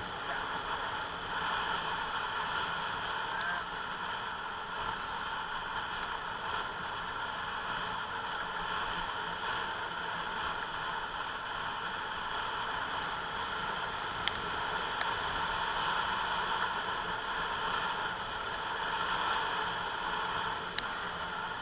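Yamaha Mio J motor scooter running steadily, its engine and road noise forming an even hiss with a few faint clicks.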